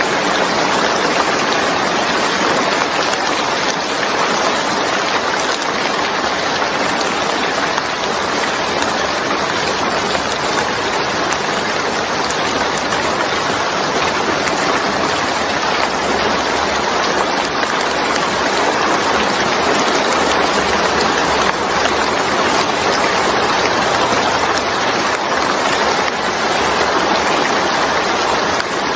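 Steady, heavy rain falling, an even dense hiss of drops.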